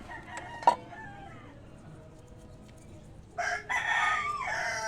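A rooster crowing once, beginning about three and a half seconds in, after a single sharp clink near the start.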